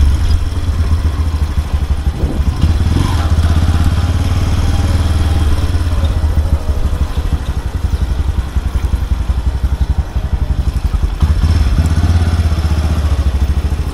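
Suzuki motorcycle engine running at low speed with a steady low pulsing beat. The throttle eases off about eight seconds in and opens again a little after eleven seconds.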